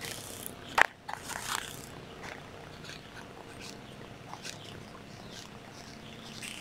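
Faint scratching of a marker pen writing on a tape label stuck to a plastic power-tool battery pack, with a sharp click of the pack being handled just under a second in.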